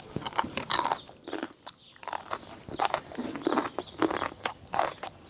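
Close-up chewing and crunching as a person eats a spicy seafood rice-noodle salad with shrimp and squid. It comes as a string of irregular crisp crunches and mouth sounds.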